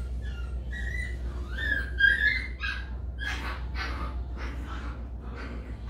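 Poodle puppy whining while held up off the ground for temperament testing: thin, wavering high whimpers for the first two seconds or so, then a run of about five short, breathy cries, about two a second. A steady low hum runs underneath.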